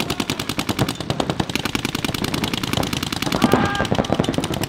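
Paintball markers firing in rapid, continuous volleys, several guns shooting at once so the shots blur into a fast rattle. Loud shouts join in over the last second or so.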